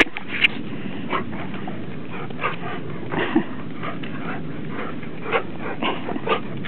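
A standard poodle and a Newfoundland playing together, with short dog vocal sounds scattered irregularly over a steady hiss.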